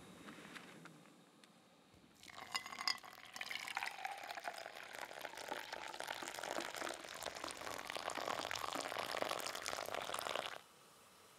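Water poured from a small pot onto coffee grounds in a pour-over filter sitting on a mug. The steady pour starts about two seconds in and stops suddenly near the end.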